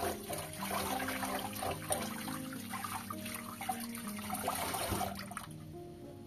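Kitchen tap running into a pot of rice, splashing over hands as they rub and rinse the grains; the water stops about five and a half seconds in. Background music with held notes plays underneath.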